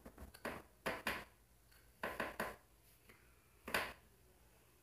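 Irregular sharp taps, about ten in small clusters, the loudest a little before the end.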